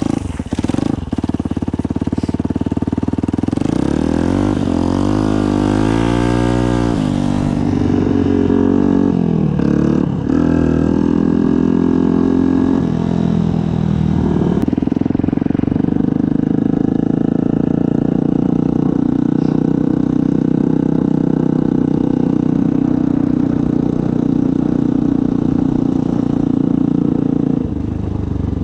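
Yamaha WR125's single-cylinder four-stroke engine through a Black Widow aftermarket exhaust, revs rising and falling sharply over the first several seconds, then running at steady revs while riding for most of the rest, with a change in revs near the end.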